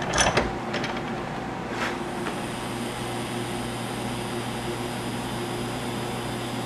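Brief metal clinks as the part is set in the vise, then a TIG welding arc running with a steady, even hum and hiss while a bushing is fillet-welded onto a manual-transmission shifter stick.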